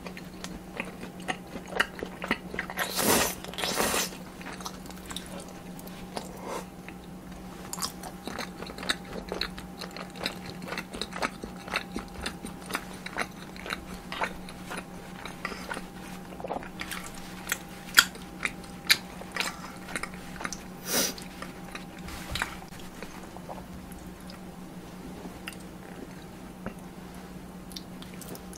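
Close-miked eating: crisp, crunchy bites and chewing, with louder crunches a few seconds in and again past the middle, over a steady low hum.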